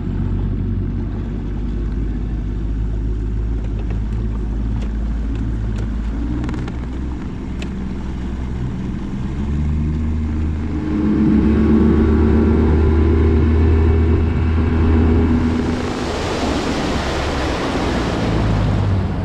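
Boat motor running with the boat under way across the lake, growing louder about ten seconds in. Near the end, wind and water rush in loudly over it.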